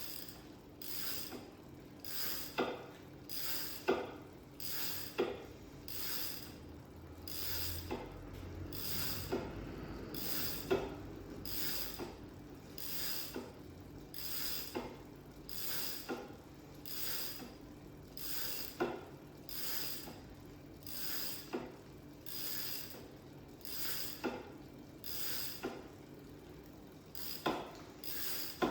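Bicycle drivetrain being pedalled, with a steady mechanical pulse and click about one and a half times a second.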